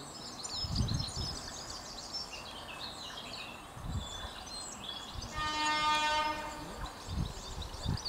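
Horn of an approaching Class 313 electric multiple unit, sounding one steady note for about two seconds, with birdsong and wind buffeting the microphone.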